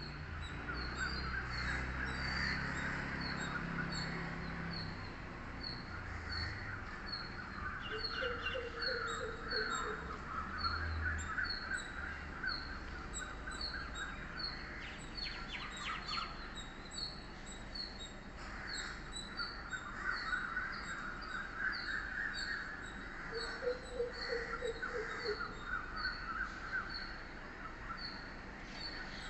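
Several wild birds calling and singing together: a high chirp repeated over and over, busy warbling song in between, and twice a lower, quick run of notes. A low rumble sits underneath for the first few seconds.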